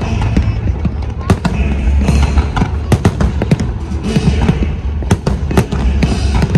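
Fireworks bursting in rapid succession: many sharp bangs and crackles over deep low booms, with music playing underneath.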